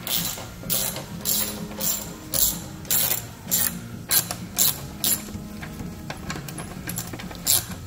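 Hand ratchet wrench clicking on an exhaust clamp bolt in repeated strokes, about two a second, then a pause and one last stroke near the end.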